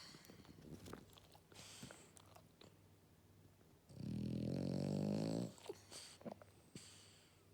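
French bulldog snoring in deep sleep: one loud, buzzing snore about four seconds in, lasting about a second and a half, with softer breaths before and after it.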